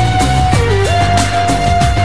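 Background music: a long held lead note that dips and slides back up about half a second in, over a steady beat and bass.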